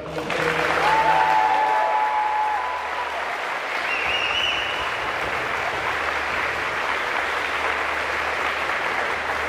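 Audience applauding, starting sharply and loudest in the first two seconds, then holding steady, with a few brief cheers from the crowd about a second in and again about four seconds in.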